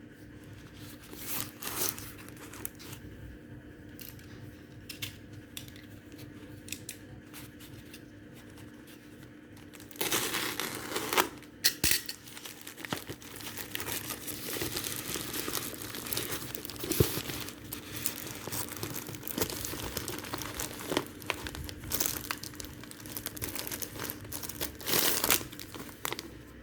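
Plastic packaging being handled, crinkled and torn open by hand: a few light clicks at first, then from about ten seconds in a dense run of crinkling and tearing, loudest just after it starts and again near the end. A faint steady hum runs underneath.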